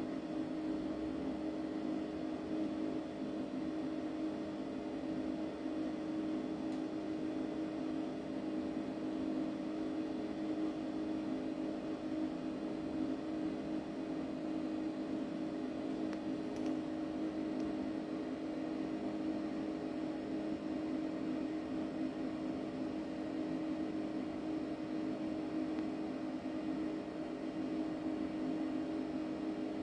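Okuma LB15 CNC lathe standing powered up, giving a steady, unchanging machine hum with a low drone.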